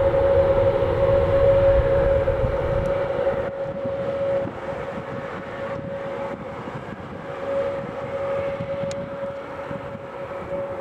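Airbus A320neo (A320-271N) with Pratt & Whitney PW1100G geared turbofans rolling out on the runway after landing: a steady engine whine over a low rumble. The rumble eases about four seconds in while the whine carries on, as the engines wind back toward idle.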